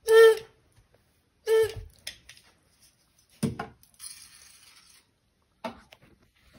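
A rubber squeaker dog toy squeezed twice, giving two short, steady-pitched squeaks about a second and a half apart. A few soft knocks and a brief rustle follow.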